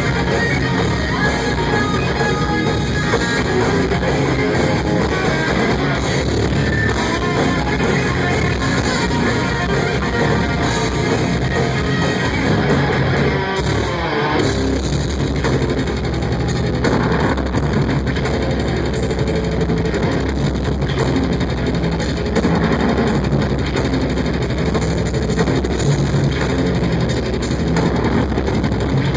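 Death metal band playing live: heavily distorted electric guitars, bass and drum kit, loud and continuous, with a falling pitch glide about halfway through.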